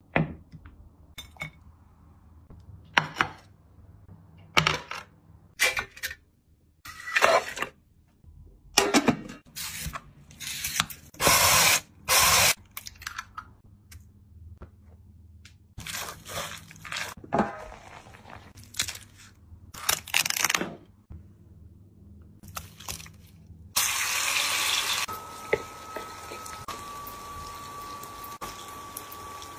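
Kitchen preparation sounds: a series of short clatters and scrapes of bowls and utensils. About three-quarters of the way through, these give way to a steady sizzle of shredded potato and shrimp frying in oil in a pan, with a faint steady whine that drops slightly in pitch once.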